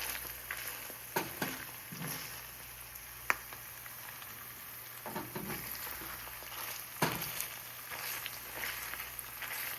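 Olive oil sizzling in a frying pan around an egg-white scramble, with the burner shut off, a steady hiss broken by scattered sharp pops and crackles.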